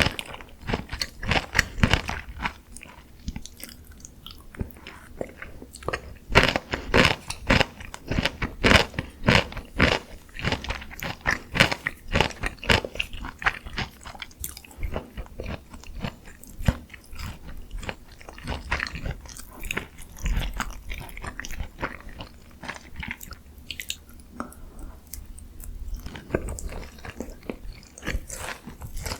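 Close-miked biting and chewing of crunchy Korean fried chicken (dakgangjeong) glazed in honey mustard cream: repeated crisp crunches of the fried coating, with wetter chewing between them.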